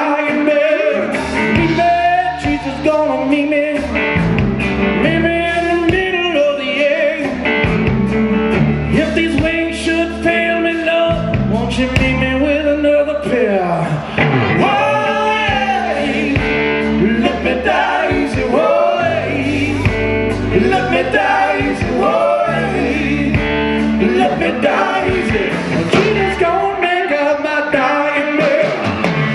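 Live blues-rock band playing: a man singing lead over electric guitars, electric bass, drums and keyboards.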